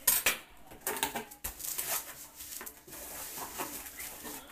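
Cardboard box flaps and the packing inside being handled: irregular rustling and scraping, with a sharp knock at the start and a few lighter knocks.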